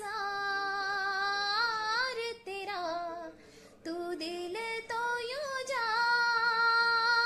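Background music: a song with a high female voice singing long held notes with vibrato, breaking off briefly about three and a half seconds in before going on.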